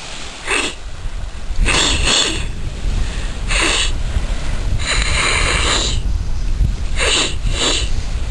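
A person breathing hard in a series of loud, noisy gasps, about six of them, irregularly spaced. Wind buffets the microphone with a steady low rumble throughout.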